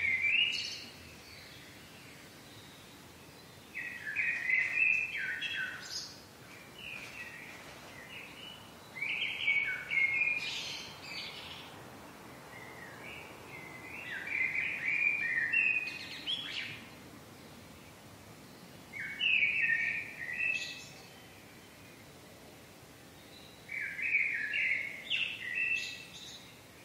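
A songbird singing a short phrase of quick notes about every five seconds, six phrases in all, with faint steady background noise in the pauses.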